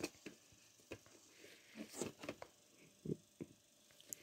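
Faint scattered clicks and taps of a plastic DVD case being handled and opened.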